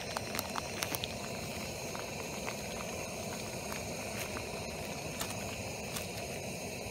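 Water at a rolling boil in an aluminium pot, bubbling steadily. A few sharp crackles in the first second come from the plastic noodle bag being handled.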